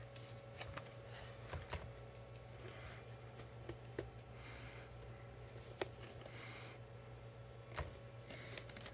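Faint, irregular light clicks and taps of plastic laptop parts being handled and pried during disassembly, with soft rustling in between, over a steady low hum.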